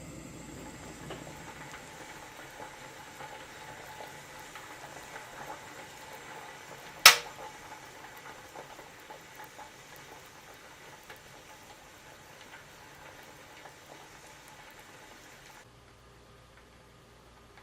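Pot of chestnuts simmering, with faint bubbling and small pops, and one sharp click about seven seconds in. The bubbling cuts off near the end.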